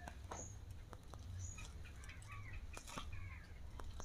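Birds chirping faintly in short calls, with a few brief scratchy rustles, the strongest about three seconds in, as ripe palmyra palm fruit fibres are pulled apart by hand.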